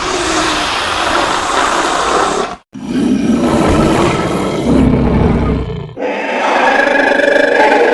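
Designed Pyroraptor dinosaur roar sound effects: three harsh, raspy roars in a row, each cut off abruptly. The last one carries a clearer, higher pitched tone.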